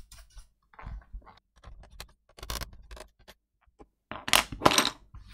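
A brush's bristles sweeping dust off a laptop's plastic bottom case in short scratchy strokes, followed about four seconds in by a few louder knocks and clatter of handling as the laptop and tools are set down.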